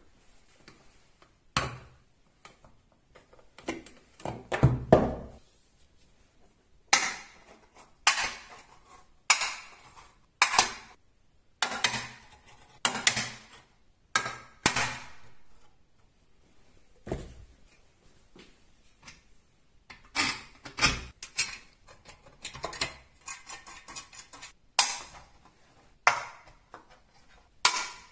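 Neodymium disc magnets snapping one by one onto a galvanized steel channel, each a sharp metallic click with a short ring, about one a second. A rattling metal scrape comes about four seconds in.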